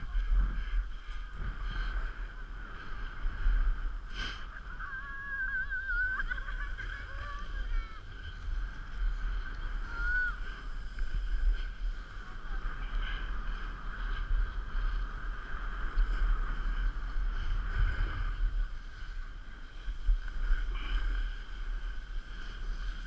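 Wind buffeting the microphone of a GoPro HERO3 during a run down a groomed ski slope, a low rumble that swells and fades, over a steady hiss of sliding on snow.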